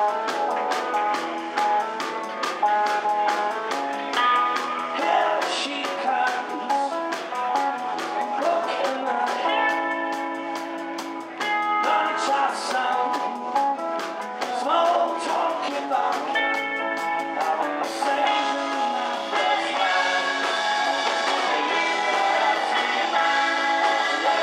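Live garage rock band playing a song: electric guitars, electric bass and drums, with a man singing at times.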